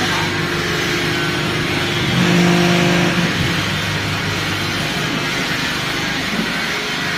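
Deep-drawing hydraulic press running as its ram comes down onto a stainless steel sink blank: a steady machine hum with level tones, briefly louder with a stronger tone about two to three seconds in.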